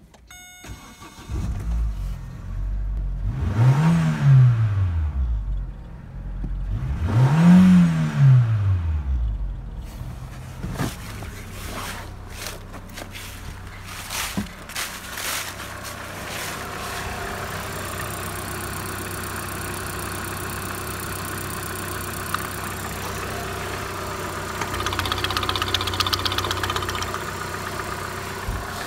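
Opel Vectra C's 1.8-litre Z18XE four-cylinder petrol engine cranked briefly and catching, revved twice, then idling steadily, with a few knocks in between. Near the end the idle grows louder and hissier for a couple of seconds as the oil filler cap on the running engine is opened.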